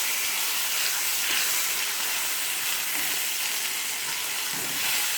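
Chicken piece frying in a little oil in a frying pan, a steady sizzle with a few faint ticks.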